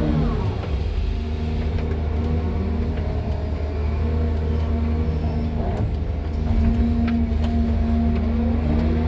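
Excavator's diesel engine running steadily, heard from inside the cab. Its note gets a little stronger and louder about two-thirds of the way through, with a few faint clicks.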